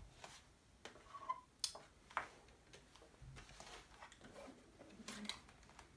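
Faint, scattered clicks and light taps from a plastic monitor casing being handled and turned over in the hands, in a small quiet room.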